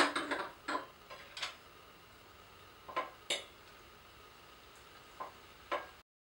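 Wine glasses set down on a tiled tabletop, then forks clinking against china plates as two people start eating: scattered light clinks, the sharpest at the very start, before the sound cuts off near the end.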